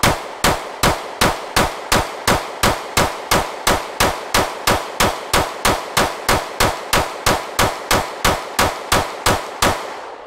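Glock 26 9mm pistol fired in one steady, fast string, about 27 shots at nearly three a second, each with a short ringing tail. It is a 31-round extended magazine being emptied, and the shots stop shortly before the end.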